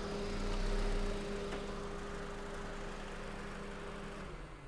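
2005 Honda Civic's 1.7-litre four-cylinder engine running with a steady hum, easing back after a brake-torque load test on a car that misfires under heavy load. The hum cuts off about four seconds in.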